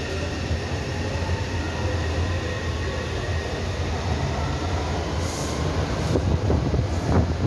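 Taipei Metro electric train pulling out of an elevated station: its traction motor whine slowly rises in pitch as it gathers speed, over the steady running noise of steel wheels on rail.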